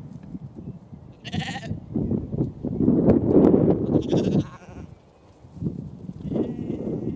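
Sheep bleating, one clear call a little over a second in and two fainter ones later, over strong wind rumbling and buffeting the microphone.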